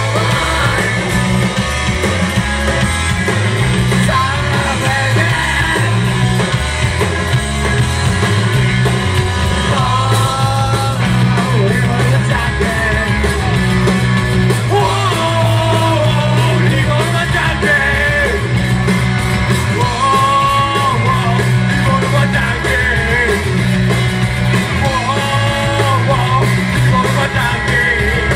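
A rock band playing live, with electric guitars, bass and a Yamaha drum kit, and a male singer singing lines over them in phrases a few seconds long.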